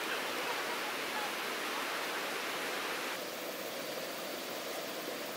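Steady rushing of river rapids over rocks. The noise shifts in tone about three seconds in.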